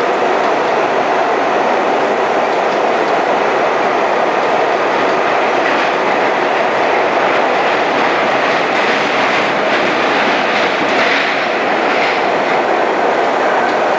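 Budd R32 subway car running at speed through the tunnel, heard from inside the car: a steady, loud rush of wheels on rails with clickety-clack.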